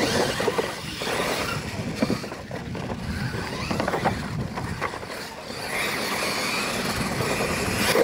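Two Losi LMT electric R/C monster trucks racing side by side on loose dirt, their motors whining and tyres scrabbling, with a few knocks as they hit and land off the ramps. The noise starts abruptly as they launch off the start line.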